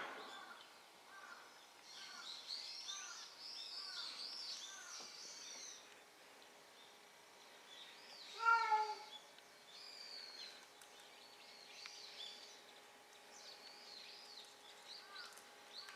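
A kitten meows once, a short falling cry about halfway through, among repeated short chirps of small birds.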